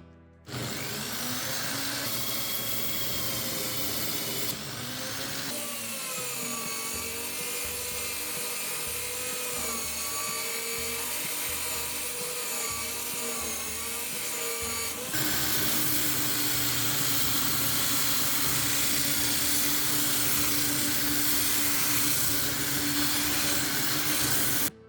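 A power tool running under load. Its motor whine wavers in pitch as it is pressed against the work. The sound comes in abruptly cut stretches, and a steadier, louder stretch runs through the last part.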